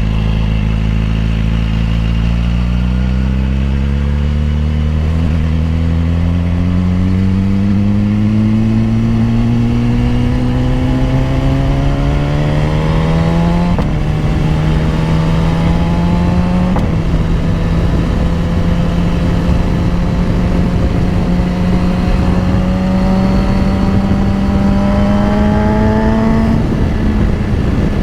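BMW S1000RR's inline-four engine pulling the bike under acceleration on the road. Its pitch climbs slowly and drops at an upshift about halfway through, again a few seconds later, and once more near the end.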